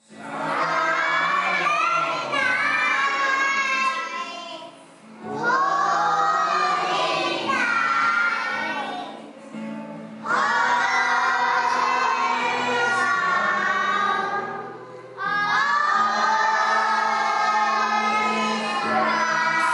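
A group of young children singing together in chorus, in four long sung lines with short pauses between them.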